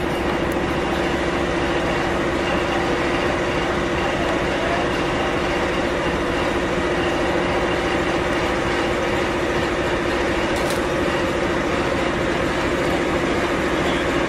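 Diesel locomotive running with a steady drone, a constant hum with no let-up.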